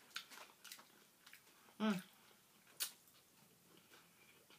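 Faint chewing and small mouth clicks from someone eating a corn dog and chips, with one short vocal sound about two seconds in and a sharp click a second later.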